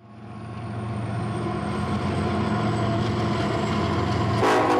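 A vehicle engine running steadily, fading in at the start, with a brief louder burst near the end.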